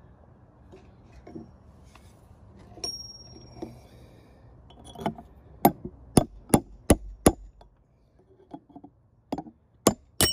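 Hammer blows on a steel punch, driving the inner front-wheel bearing race out of a 1990 Toyota Pickup hub. A light metallic clink comes first, then a quick run of five sharp strikes about three a second, and a few more strikes near the end as the race comes free.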